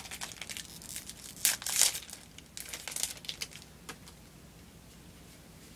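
Plastic trading card booster pack wrapper being torn open and crinkled by hand, in a few sharp rasps that are loudest about one and a half to two seconds in, with lighter crinkles that die away about four seconds in.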